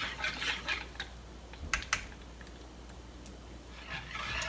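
Wire whisk stirring matcha pudding liquid in a bowl, scraping and clicking against the bowl's sides. The stirring pauses about a second in, leaving a few sharp clicks, and starts again near the end.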